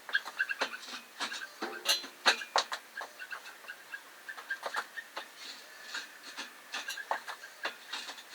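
Caster wheels squeaking and clicking irregularly as a heavy load is pushed and swivelled across a workshop floor, with short high squeaks among the clicks.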